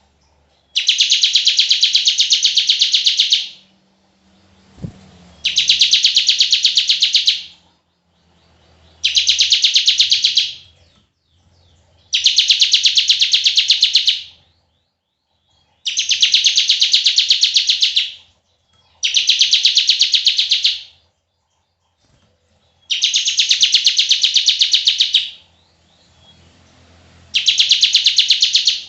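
Bar-winged prinia (ciblek) singing its long 'bren' song: a series of about eight rapid, buzzing trills, each lasting two to three seconds, with short pauses between them. A single short thump sounds about five seconds in.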